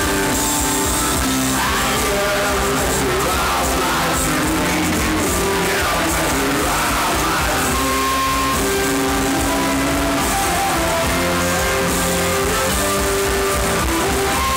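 Live folk-rock band playing a slow ballad: strummed acoustic guitar, electric guitar and drums, with a melody of held notes over them.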